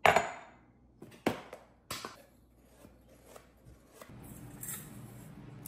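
Kitchen prep sounds: a loud sharp knock, then several lighter knocks and clatters of utensils on a counter, and from about four seconds in a steady low hum.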